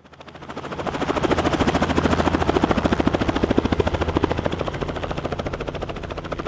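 Helicopter rotor beating with a fast, even rhythm. It swells in over the first second, is loudest about midway, then eases off a little.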